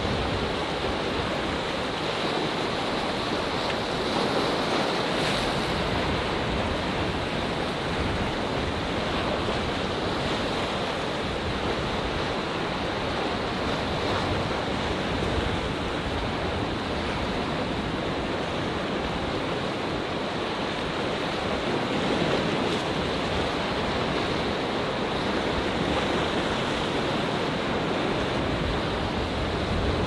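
Rough Atlantic Ocean waves breaking and washing among shoreline rocks: a continuous surf that swells a little louder now and then.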